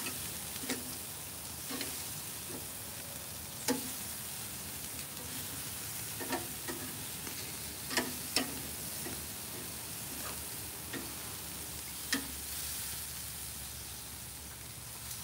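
Pork chops sizzling on a charcoal grill's grate as they are turned, with sharp clicks of metal tongs against the grate about eight times.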